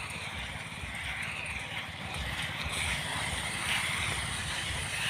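Small engine-driven rice thresher running steadily, its engine pulsing rapidly.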